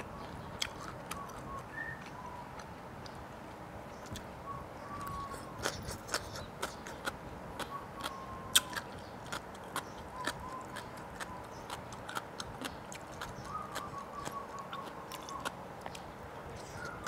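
Close-up mouth sounds of eating papaya salad by hand: wet smacking and crunching clicks while chewing, coming irregularly, several a second at times.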